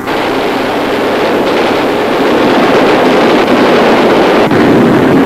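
Loud, steady roar of aircraft engines, a sound effect laid on an old newsreel film soundtrack.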